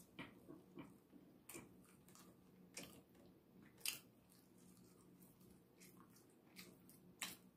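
Someone chewing rotisserie chicken, with scattered wet mouth clicks and smacks at a faint level, the sharpest about four seconds in. A faint steady low hum runs underneath.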